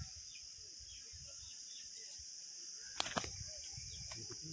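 Steady high-pitched drone of insects, crickets among them, with faint scattered chirps. About three seconds in come a couple of sharp clicks, a brief knock and rustle in the grass.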